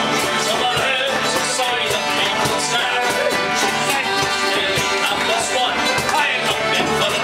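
Live acoustic guitar strummed together with an accordion, playing an old-time song medley, with a man singing along.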